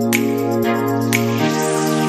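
Background music: held keyboard-like chords over a steady beat, the chord changing about one and a half seconds in.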